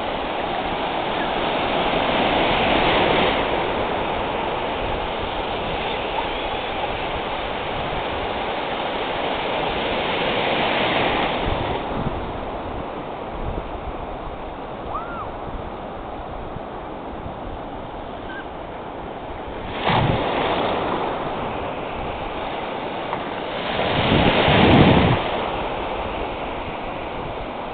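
Ocean surf: small waves breaking and washing over shallow water in a continuous rush. It swells louder four times as waves break, the last and loudest near the end.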